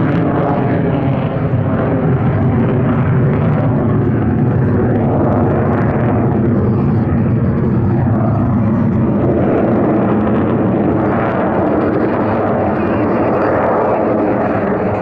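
Fixed-wing aircraft flying at an air show, its engine noise loud and continuous with a steady hum of even tones, which slide in pitch midway as it passes.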